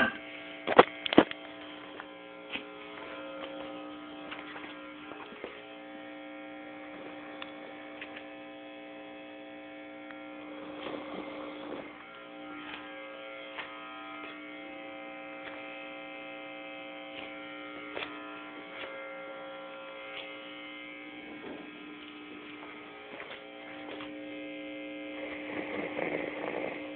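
Sleeping men snoring: a few slow snores several seconds apart, the loudest near the end, over a steady droning hum.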